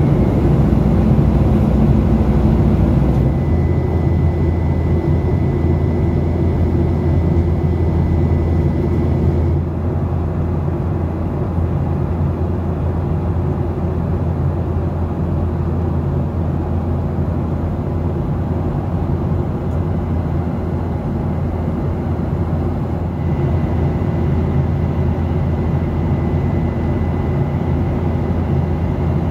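Steady in-flight cabin noise of a Boeing 737 heard from a window seat: a continuous low rumble of engines and rushing air, with a faint thin high whine that comes and goes.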